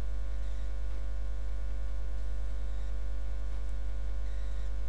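Steady electrical mains hum: a low buzz with many faint, steady higher overtones and nothing else.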